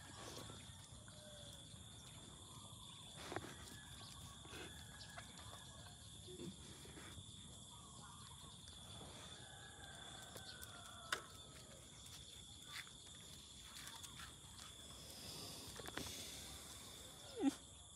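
Faint outdoor rural ambience: a steady high-pitched drone with scattered faint animal calls and clicks. Near the end comes a short, louder call falling in pitch.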